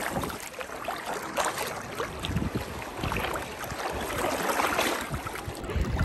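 Sea waves washing onto a beach, with wind gusting on the microphone in uneven surges.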